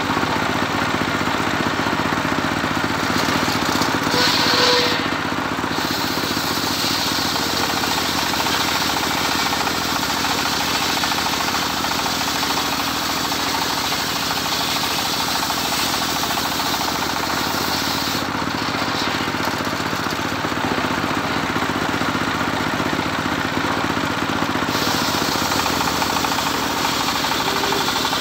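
Engine-driven home-built circular saw (serkel) ripping lengthwise through a medang log, a steady engine drone under the blade's cutting noise. It grows briefly louder about four seconds in.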